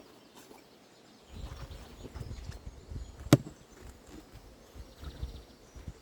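A single sharp knock about three seconds in, over low rumbling noise like wind or handling on the microphone.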